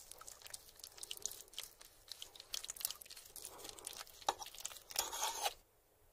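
A wooden fork cutting and prying through a large baked lasagna: close-miked crackling and soft squishing of the pasta layers and meat sauce. It stops about five and a half seconds in.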